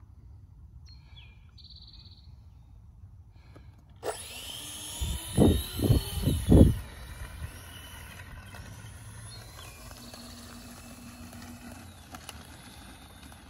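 The twin electric ducted fans of an E-flite A-10 model jet spool up with a sudden high rising whine about four seconds in. A few heavy rumbling gusts buffet the microphone for a couple of seconds, then the fans settle into a steady whine as the jet taxis off.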